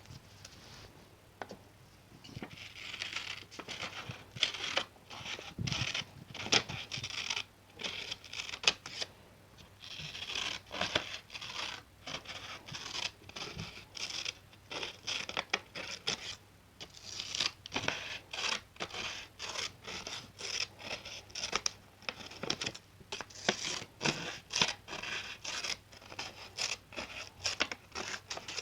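Scissors cutting through material in a long run of crisp snips, each closing blade with a scratchy rasp, broken by a few brief pauses.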